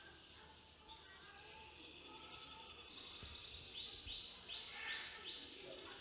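Birds in an aviary chirping and trilling, faint. Rapid high trills begin about a second in, followed by a run of short, quick falling chirps.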